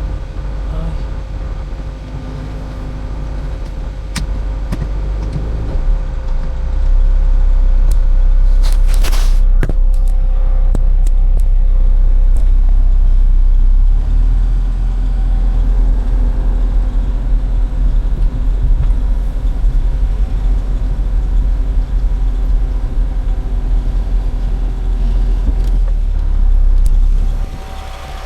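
A motor vehicle driving with a steady low engine and road rumble. The rumble grows louder about seven seconds in and falls away near the end, and there is a short clatter about nine seconds in.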